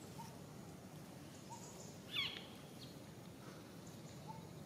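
Faint outdoor background with a few soft chirps. A little over two seconds in, one short, high, wavering animal squeak is the loudest sound.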